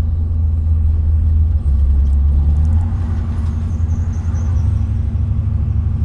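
Dodge pickup engine and drivetrain droning inside the cab while driving, a loud low rumble whose pitch shifts slightly about one and a half seconds in and again about three seconds in.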